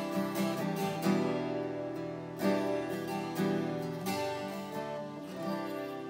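Seagull Coastline Cedar S12 twelve-string acoustic guitar with a solid cedar top, played solo with a pick: chords strummed and left to ring, a stroke about every second, the sound dying away a little near the end.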